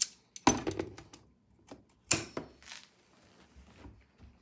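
Clicks and knocks of vise grips being clamped onto an aluminium rod and handled against a plastic brooder frame, with sharp knocks about half a second and two seconds in and lighter ticks between.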